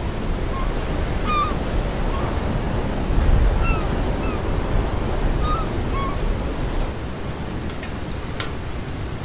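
Steady seaside wind and surf noise, with short bird calls now and then through the first six seconds. A few sharp clicks come near the end.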